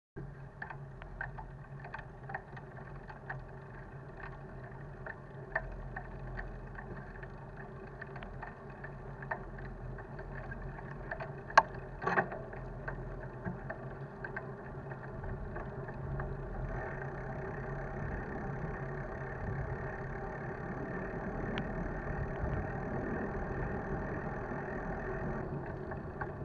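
Bicycle riding noise: a steady hum and road rumble with many small clicks and rattles from the bike, and two sharper knocks just under halfway through.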